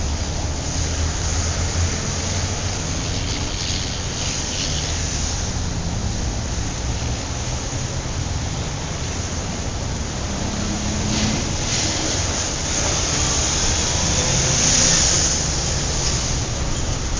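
City traffic: a steady wash of passing cars with a low engine rumble underneath and tyre hiss that swells as vehicles go by, a few seconds in, around eleven seconds, and loudest about fifteen seconds in.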